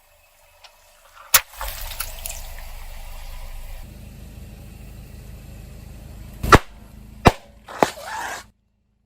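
Objects cracking and popping as they are crushed under a rolling car tyre, over a steady low rumble of the car. There is one sharp crack about a second in and three more near the end, the second of those the loudest, and then the sound cuts off suddenly.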